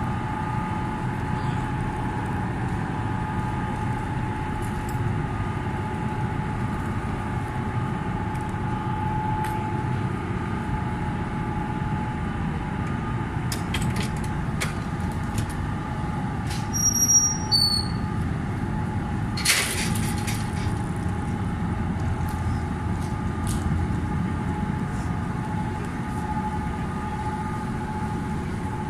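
Steady machinery hum of the moored ro-ro ferry MV Isle of Lewis, a constant mid-pitched tone over a low rumble. Scattered faint clicks run through it, a few short high chirps come a little past halfway, and a sharp knock follows shortly after.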